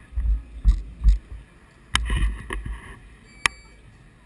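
Irregular low thumps and rumble from a bicycle-mounted camera being jostled, with two sharp clicks, one about two seconds in and another about a second and a half later.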